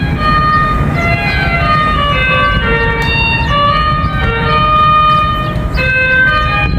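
Carillon bells of the 35-bell Glockenspiel tower playing a melody, one note after another, each ringing on and overlapping the next, over a steady low rumble.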